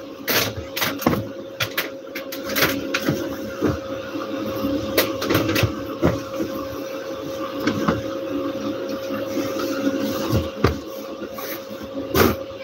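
Bedsheet and pillows rustling and being patted and tucked by hand as a bed is made, with many short knocks and scrapes, over a steady hum.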